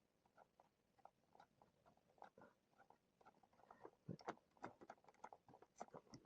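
Faint, scattered small clicks and taps of hands working on a micro RC buggy's aluminium oil-filled shock and its mount, freeing a shock that binds; the clicks come thicker and a little louder in the last couple of seconds.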